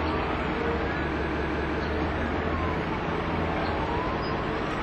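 An emergency vehicle siren wailing faintly, its pitch slowly rising and falling, over a steady wash of street and traffic noise with a low hum.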